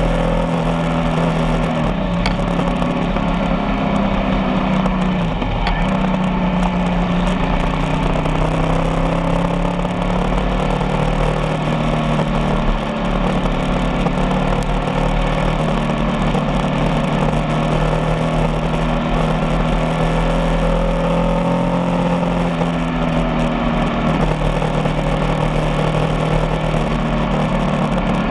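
Motorcycle engine running steadily at cruising speed, its pitch drifting slowly up and down.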